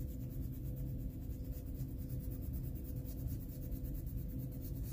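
Colored pencil shading on a coloring-book page: the soft, rapid scratch of short back-and-forth strokes of pencil lead on paper.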